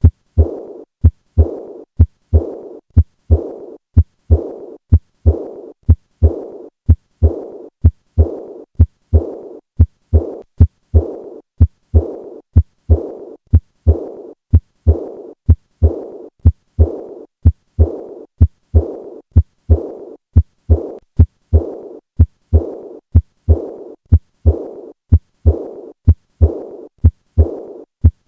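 Heart sounds auscultated at the fourth left intercostal space, about one beat a second: each beat a short low thud followed by a hissing murmur that fades away. This is the early diastolic decrescendo murmur of acute aortic regurgitation.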